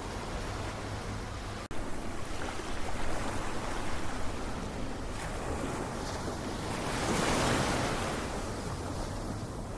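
Ocean surf: a steady wash of waves, with one wave swelling up loudest about three quarters of the way through. There is a brief break in the sound just under two seconds in.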